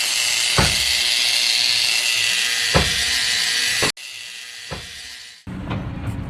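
A power tool running with a steady, high-pitched hissing whine and a few sharp clicks, cut off abruptly about four seconds in. A quieter stretch follows, then a lower rumble starts near the end.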